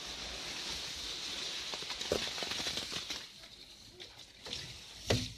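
Door handle of a cast-iron red telephone box being turned and the heavy door pushed open: a steady hiss, then a few clicks and a loud metallic clunk near the end.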